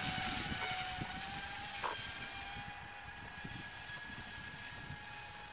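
Motor and propeller of a BMI Arrow 1500 RC motor-glider running at steady power as it climbs away: a high, even whine that fades over the first few seconds, then stays faint and steady.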